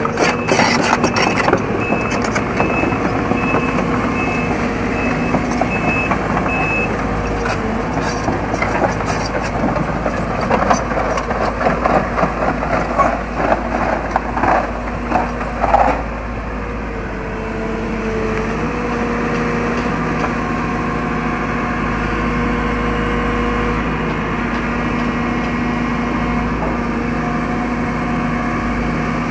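Case CX210B tracked excavator's diesel engine running as the machine tracks up onto a low-loader trailer. Its steel tracks clank and rattle for about the first half, with an evenly repeating warning beep over the first few seconds. After that the engine runs steadily.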